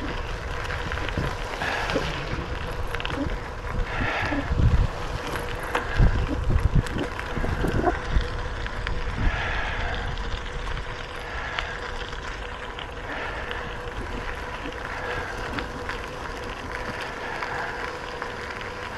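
Bicycle riding along a trail: steady rolling noise with wind buffeting the microphone, in gusts strongest between about 4 and 8 seconds in. Faint voices can be heard in the background.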